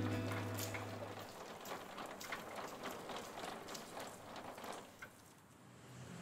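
A hawker's wheeled tricycle cart being pushed over a street, its wheels and frame giving irregular light clicks and rattles, about three a second, that die down near the end. The last low note of a short music jingle fades out in the first second.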